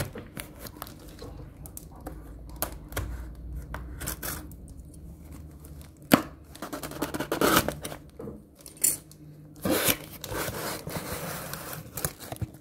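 Cardboard shipping box handled and opened by hand: scattered clicks and knocks as it is turned over, then louder tearing and scraping as the tape and flaps come open in the second half.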